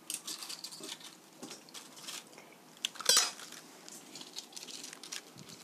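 Kitchen knife clicking and scraping on a plastic cutting board, with one loud sharp clack about three seconds in as the knife is set down on the board.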